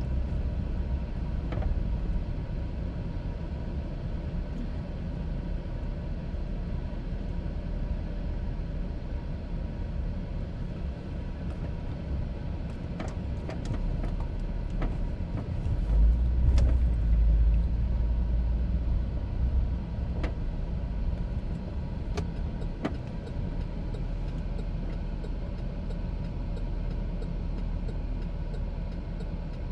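A car driving: steady low engine and road rumble that swells for a couple of seconds about halfway through, with a few light clicks and knocks.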